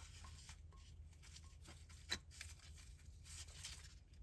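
Near silence with faint rustling and small clicks of gloved hands handling a sensor wire, and one sharper click about two seconds in.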